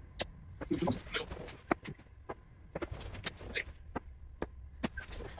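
Darts striking a Winmau Blade 6 bristle dartboard, among a scattering of sharp clicks and knocks.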